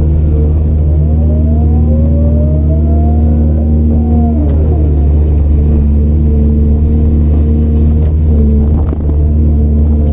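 Heavy diesel engine of earthmoving machinery running steadily under load, with a higher whine that rises and then falls in pitch midway.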